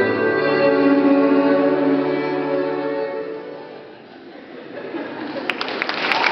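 Violin music with sustained notes, fading away about four seconds in. An audience then starts applauding, growing louder toward the end.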